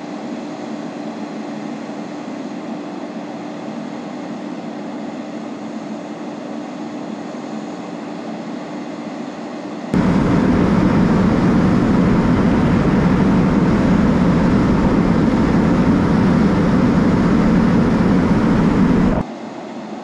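Fire ladder truck's diesel engine running steadily, a low rumble with a steady hum. About halfway through it turns much louder and deeper for about nine seconds, then drops back abruptly.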